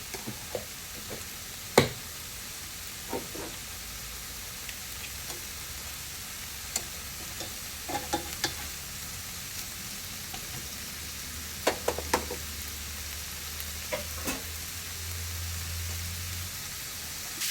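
Shrimp sizzling steadily in a frying pan in olive oil and butter, with scattered clicks and knocks of a utensil against the pan, the loudest about two seconds in.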